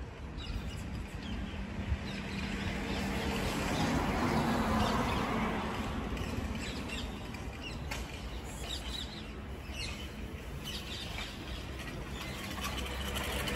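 Small birds chirping now and then over a steady outdoor background noise, which swells about four to five seconds in and again near the end.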